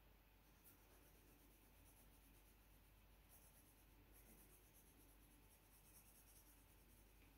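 Faint scratching of a pencil shading on drawing paper, with a busier run of strokes from about three to six and a half seconds in.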